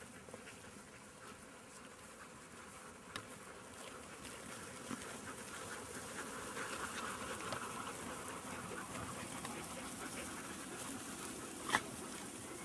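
A flock of sheep trotting over a grass pasture: a soft, dense patter of many hooves and a buzzing hiss that grow louder through the middle as the flock comes close. There is one short, sharp sound near the end.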